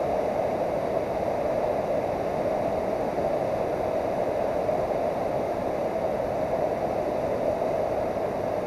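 Steady rushing of river water spilling over a low dam and churning in the whitewater below it, an even, unbroken noise.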